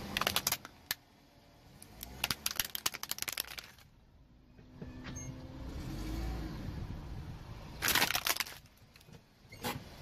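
Hard plastic toy car cracking and snapping under a car tire, in several bursts of sharp clicks, the last a single snap near the end. Between the bursts the car rolls on asphalt with a low rumble.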